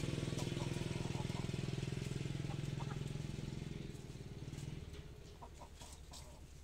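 An engine running steadily with a fast pulsing drone, dying away about four to five seconds in, with a few faint hen clucks over it.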